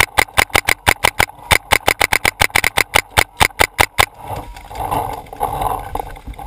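Paintball marker firing rapidly at close range, about six shots a second in a slightly uneven string, stopping about four seconds in. Rustling and movement noise follow.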